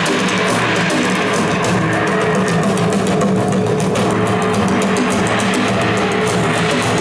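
Loud live band music over a concert PA: sustained held chords with rapid drum and cymbal strikes.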